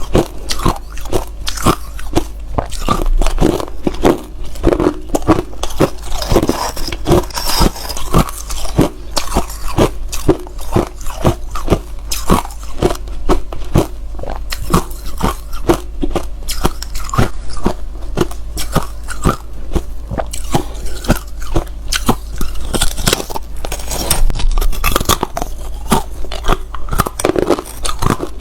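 Hard ice being bitten and chewed close to the microphone: a rapid, continuous run of loud, sharp crunches, several a second.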